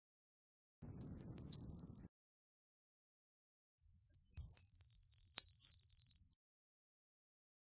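Eurasian blue tit singing two song phrases, about a second in and again about four seconds in. Each phrase is a few thin, high notes sliding down into a fast trill, and the second trill runs longer.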